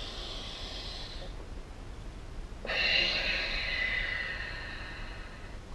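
A man breathing hard during a yoga stretch: a faint breath trailing off near the start, then a long, louder exhale that begins suddenly about three seconds in and fades over about two seconds as he pulls his arms down.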